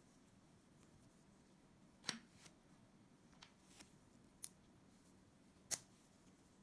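Tiny building-block parts clicking as they are pressed and snapped together by hand: a few short sharp clicks, the loudest about two seconds in and near the end, with fainter ticks between.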